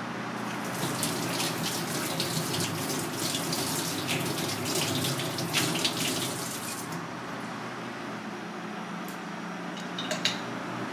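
Kitchen tap running over hands rinsing freshly shelled turban shell meat in a sink, splashing, until the water stops about seven seconds in. A steady low hum runs underneath, with a couple of light clicks near the end.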